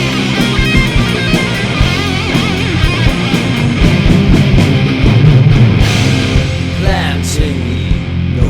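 Rock music instrumental break: guitar over a steady drum beat, with a quick falling glide in pitch about seven seconds in.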